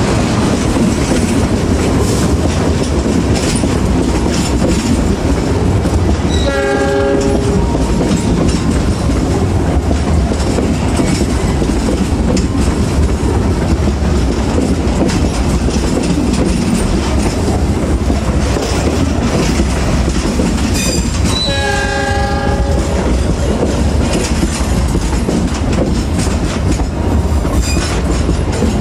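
A diesel-hauled passenger train rolling past with a steady low rumble and wheel clatter. A diesel locomotive horn blows twice: a short blast about six seconds in and a longer one around twenty-one seconds.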